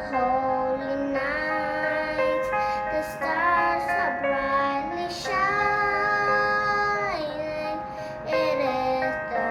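A child singing a song with instrumental accompaniment: long held notes with slides between them.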